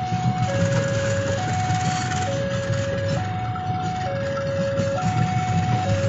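Railway level-crossing warning alarm sounding an alternating two-tone signal, a higher and a lower note switching about once a second, over the steady low rumble of a passenger train's wheels rolling on the rails.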